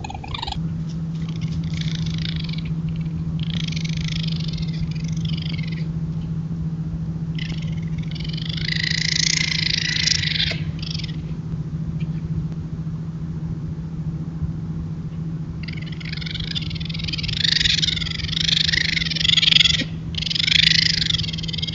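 Raccoons making mating noises: a series of harsh, raspy bursts, some brief and some several seconds long, with the longest and loudest stretch near the end.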